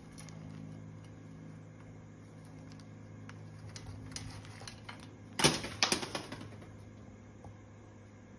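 Green-winged macaw's beak clicking and crunching at food, with scattered light clicks building to two loud cracks about half a second apart near the middle. A low steady hum sits underneath.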